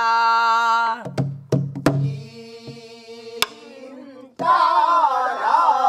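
Pansori singing over a buk barrel drum. A woman holds a sung note for about a second, then a few sharp strokes of the buk follow. About three-quarters of the way through, a group of voices comes in singing the phrase back.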